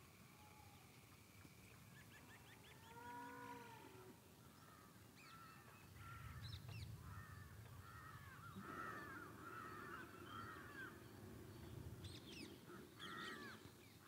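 Faint outdoor ambience: birds chirping and calling again and again, and one brief cow moo about three seconds in. A low rumble sits underneath in the second half.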